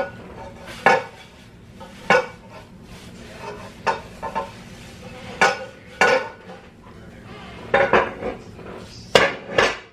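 Cast iron cookware knocking and clanking as it is handled: about ten sharp metallic clanks at uneven intervals, each with a short ring.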